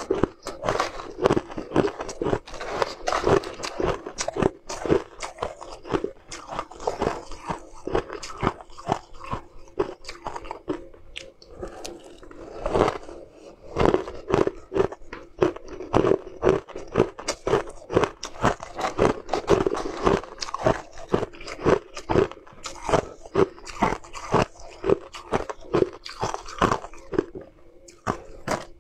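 Close-miked crunching and chewing of shaved ice and ice chunks: a dense, irregular run of sharp crackling bites.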